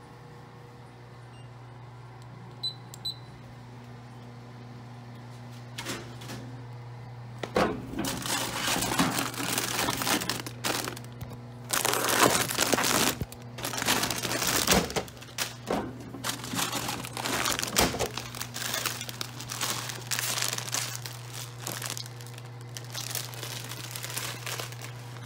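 Snack vending machine: two short beeps, then its motor running for a couple of seconds and a thunk as the bags drop. After that, foil chip bags crinkle loudly and irregularly as they are handled, over a steady low hum.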